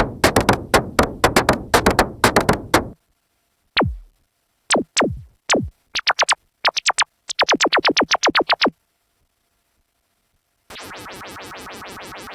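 Dave Smith Mopho monophonic analog synthesizer playing presets. First comes a fast run of percussive notes, then several short zaps that drop in pitch, then a quick burst of sweeping blips. After about two seconds of silence, a new sound with a rapid, even pulse starts near the end.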